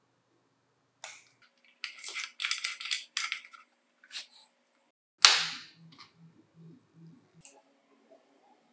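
Hands working on a plastic pencil-sharpener housing and its wiring. There is a click, then a run of scratchy rustling, then a single sharp knock just after five seconds, the loudest sound, followed by a few faint clicks.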